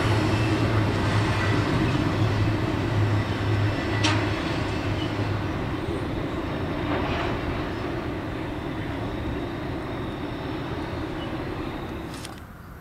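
Double-stack container freight train rolling away across a steel girder bridge: steady wheel-on-rail noise and low rumble, slowly fading as the train recedes, with a sharp click about four seconds in. The sound drops away abruptly just before the end.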